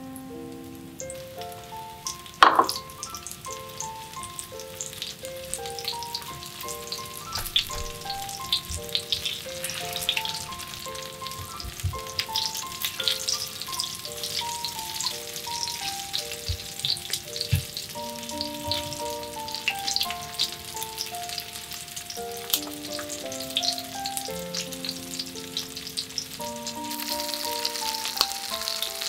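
Starch-coated pieces of canned mackerel shallow-frying in oil in a black iron frying pan, a steady sizzle with constant small crackles, over gentle piano background music. A sharp click stands out about two and a half seconds in, and the sizzle grows louder near the end.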